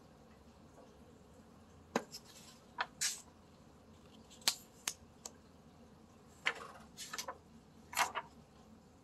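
Pages of a hardcover picture book being turned by hand: a string of short paper flips and rustles, several of them in quick pairs.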